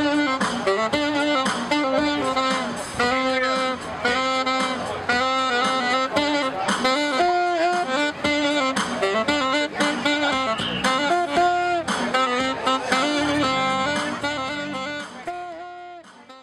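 Background jazz music with saxophone lead over a steady beat, fading out near the end.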